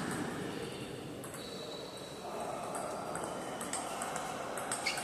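Table tennis ball clicking sharply off bats and table in a rally, several hits at uneven intervals with a quicker run near the end, over the steady background noise of a large hall.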